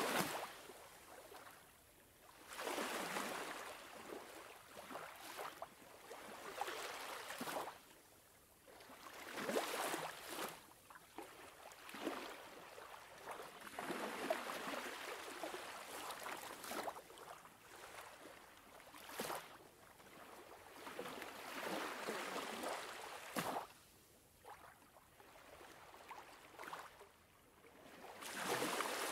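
Sea water washing and splashing against breakwater rocks, swelling and falling back every few seconds.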